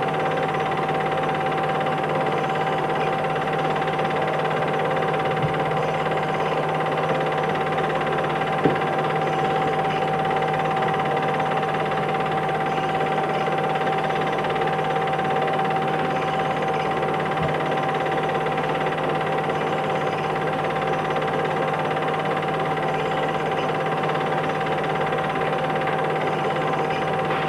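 Steady hum and hiss with a constant whine that never changes, broken only by a couple of faint clicks, the loudest about a third of the way in.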